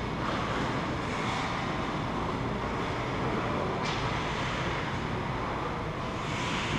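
Steady din of ice hockey play in an indoor rink: skate blades carving and scraping the ice, with a sharper scrape about four seconds in.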